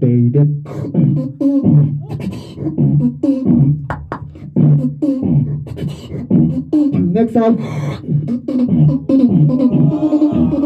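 Solo beatboxing into a cupped handheld microphone, amplified through the venue's speakers: sharp kick and snare hits over low held bass notes, with quick pitch glides and vocal effects.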